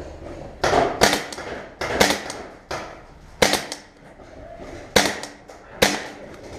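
Paintball marker shots: about eight sharp pops, irregularly spaced.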